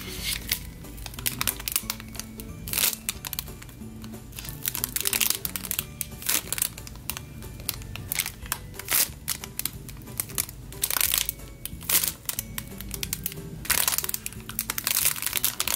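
Clear plastic bag crinkling in irregular crackles as two handmade squishies are slid into it and squeezed through the plastic, over soft background music.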